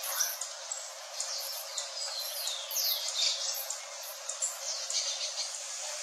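Songbirds singing: many quick high chirps and downward-sweeping whistled notes, overlapping, over a steady hiss.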